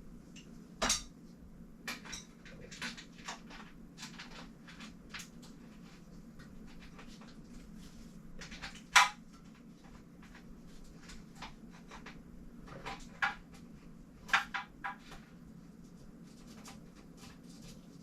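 Scattered clicks and light knocks of small metal parts and tools being handled while a front derailleur is fitted to a bike frame, with a sharper knock about a second in, the loudest about nine seconds in, and a quick run of clicks near fourteen seconds. A faint steady hum sits underneath.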